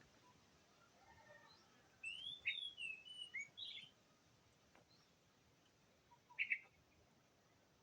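Oriental magpie-robin singing, faint: a short phrase of sliding whistled notes about two seconds in, then a single brief call about two seconds later.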